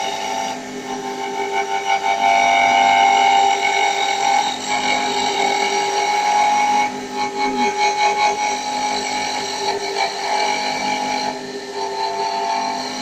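Mini CNC wood lathe turning a wooden pen blank while the cutter shapes it. The motors give a steady multi-tone whine that changes pitch every few seconds as the machine's moves change.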